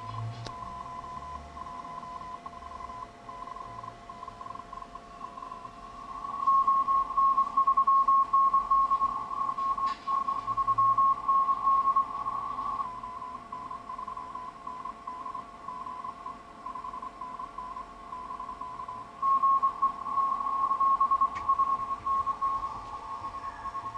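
Morse code (CW) signal received on the 40-metre amateur band through an ELAD FDM-S2 software-defined receiver: a high-pitched beep keyed rapidly into dots and dashes over band noise and fainter steady carrier tones. The keying is loudest in two stretches, about six seconds in and again about nineteen seconds in.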